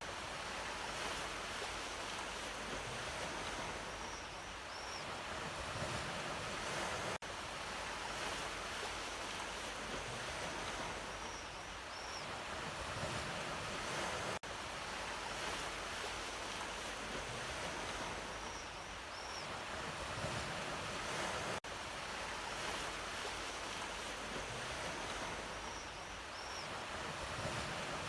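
Sea waves washing on the shore in a steady rush of surf. It is a short recording looped about every 7 seconds, with a brief dip at each seam. A faint high double chirp recurs once in each loop.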